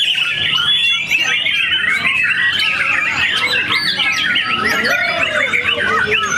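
White-rumped shama (murai batu) singing: fast, varied whistles, chirps and trills with no pauses, overlapping with the songs of other caged contest birds.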